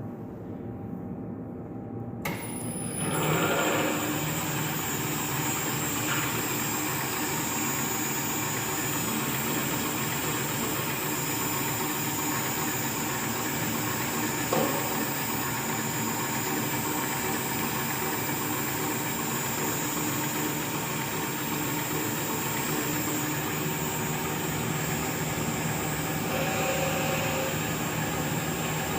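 Geared machine starting up about two seconds in, with a brief high whine as it comes on, then running steadily with an even mechanical hum and noise.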